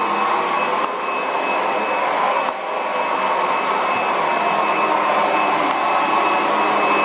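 Roidmi F8 cordless stick vacuum cleaner running on its high setting as it is pushed across a rug: a steady whir with a thin high whine, dipping briefly twice.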